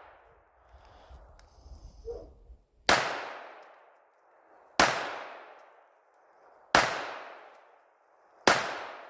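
Four pistol shots from a Smith & Wesson M&P Shield EZ .380, fired at a slow, even pace about two seconds apart, each report trailing off in a long echo.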